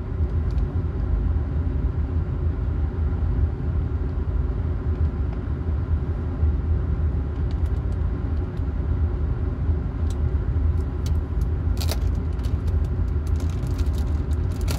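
Steady low hum and rumble of a running machine, with a few light clicks in the second half.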